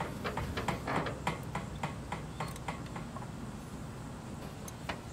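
Scattered light clicks and taps of small metal parts being handled inside an open distributor, at an uneven pace, while a feeler gauge is used to set the 30-thousandths gap of a Pertronix electronic ignition module.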